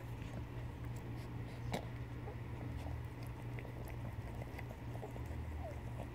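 Mother cat licking her newborn kitten clean just after birth: soft, wet licking and smacking clicks, irregular, over a steady low hum.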